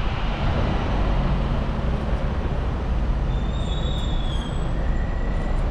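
Bus engine and road noise: a steady low rumble. Two brief high-pitched squeals come in the second half.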